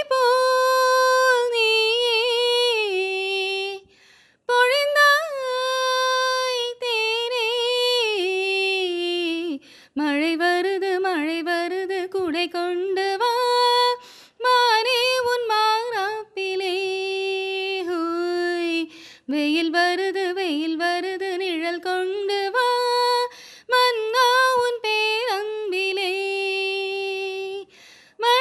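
A woman singing a Tamil song unaccompanied, in long held notes with wavering ornaments, in phrases of a few seconds each with short breaths between.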